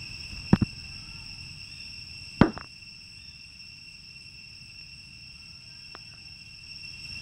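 Steady, high-pitched drone of insects over a low outdoor rumble. Sharp clicks cut across it: a quick double click about half a second in, a louder knock just before two and a half seconds, and a faint click near six seconds.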